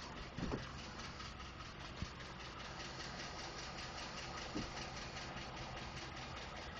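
2012 Ford F-150's 5.0-litre V8 engine idling with a fast, even ticking, plus a few louder isolated knocks at about half a second, two seconds and four and a half seconds in. The ticking is a known complaint on this engine that Ford has so far diagnosed as normal.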